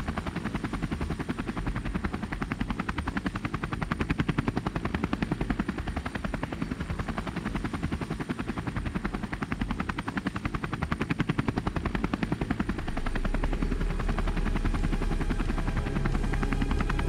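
Helicopter rotor blades chopping fast and steadily. A low steady drone joins near the end.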